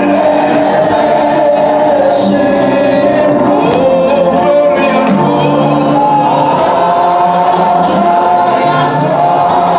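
A women's church choir singing a gospel worship song together into stage microphones, with long held notes.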